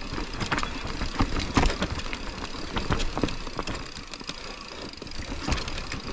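Mountain bike riding downhill on a dirt singletrack: tyres rolling over loose soil under a steady rumble, with irregular clicks, knocks and rattles from the bike over bumps.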